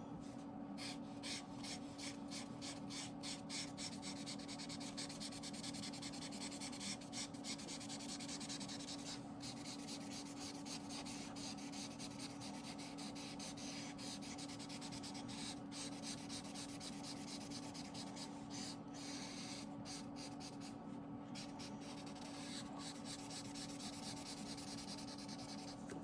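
Marker tip rubbing on colouring-book paper in many quick, short strokes, a continuous scratchy sound, over a steady low hum.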